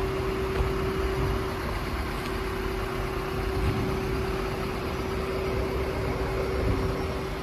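Renault Master van's 2.3-litre diesel engine idling steadily: a low rumble with a constant hum over it.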